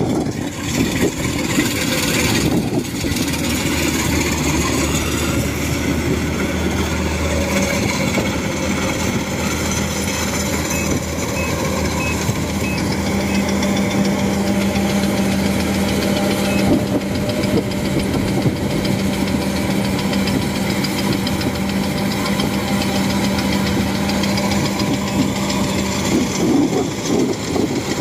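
Thai-built 105 rice combine harvester running steadily as it cuts and threshes standing rice: a continuous engine and machinery drone.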